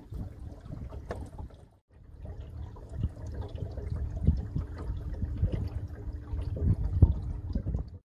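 A small aluminum fishing boat moving across a lake, with water lapping and splashing against the hull under a low wind rumble on the microphone. The sound drops out briefly about two seconds in.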